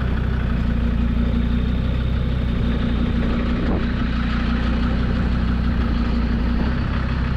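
Off-road 4x4 truck's engine running steadily at low revs while the driver tries to drive with a drivetrain fault, which the crew puts down to a broken rear half shaft.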